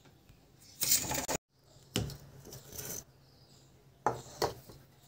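A few separate scraping and knocking strokes. A loud scrape about a second in is cut off abruptly. A sharp one at about two seconds fades away, and two quick knocks come near the end.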